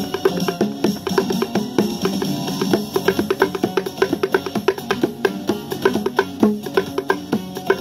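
Bongos played by hand in a fast, steady rhythm, several strokes a second, alternating a lower-pitched drum and a higher-pitched drum.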